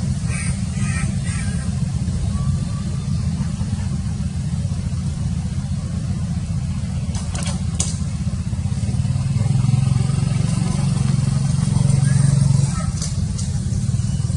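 Low, continuous motor-vehicle engine rumble, which grows louder and steadier for a few seconds past the middle before dropping back. A few short clicks come about halfway through.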